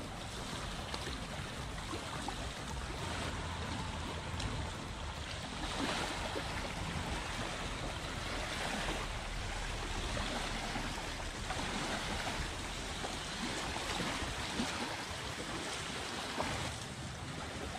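Shallow sea water lapping at the shore with wind on the microphone, and splashes every few seconds.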